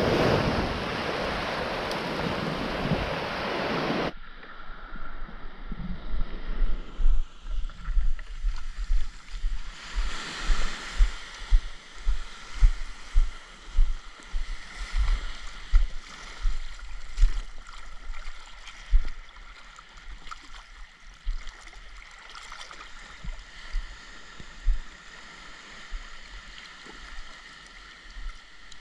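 Wind and surf noise on the microphone for the first few seconds, then a sudden change to muffled water sloshing around a waterproof action camera held at the sea surface, with irregular dull thumps and splashes.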